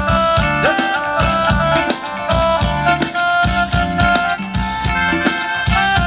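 A live band plays Thai ramwong dance music through a loudspeaker system in an instrumental passage: a steady drum beat under a sustained, reedy melody line.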